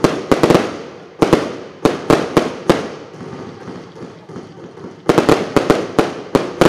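A fireworks battery firing shot after shot, each a sharp bang. The bangs come in quick clusters, with a lull of about two seconds midway and then a fast run of bangs near the end.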